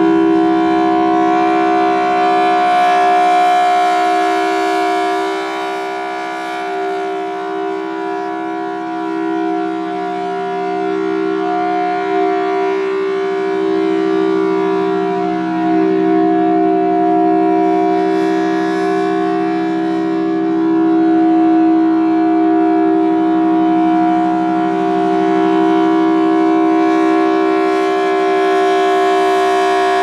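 Federal Signal Thunderbolt outdoor warning siren sounding a steady alert tone, swelling and fading as its horn rotates. The pitch wavers slightly, the sign of an ailing siren.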